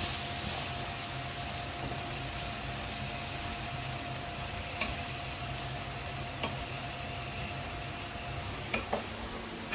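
Onions and garlic frying in oil in a pan, a steady sizzle, with a few light clicks of the stirring utensil against the pan.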